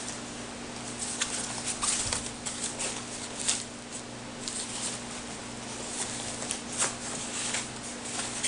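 Hands rustling and scraping the nylon fabric of a paragliding harness's reserve container as its closure flaps are worked and the closing loop is threaded through them, with irregular short crinkles and scratches.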